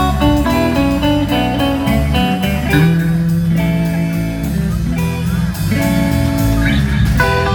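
Live band playing an instrumental blues-rock passage: electric guitar with held notes over a walking bass line, with no singing.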